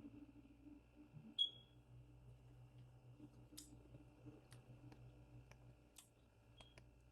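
Faint eating sounds: a handful of soft clicks and taps from utensils and chewing. One short ringing tap comes about one and a half seconds in, over a low steady hum.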